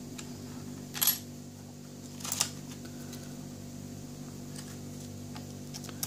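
Two sharp metal clicks, about a second and two and a half seconds in, over a steady low hum: a small TSA luggage padlock being handled in a bench vise while picking tools are readied.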